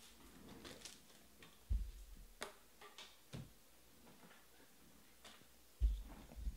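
Scattered light clicks and taps with two soft thumps, the louder one near the end, from trading cards and card packs being handled and set down on a table.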